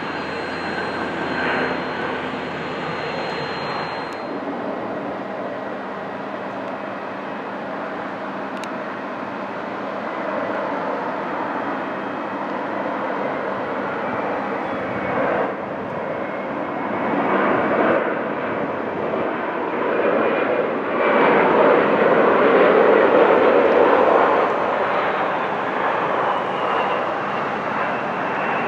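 Turbofan engines of regional jets landing. A Bombardier CRJ rolls out on the runway, with a steady high whine over the engine noise. From about four seconds in, an Embraer regional jet approaches; its engine noise grows and is loudest about three-quarters through, then eases slightly as it touches down.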